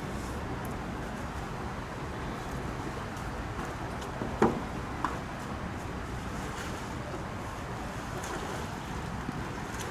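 Steady rushing of the flowing, rain-swollen river, with a sharp knock about halfway through and a lighter one half a second later.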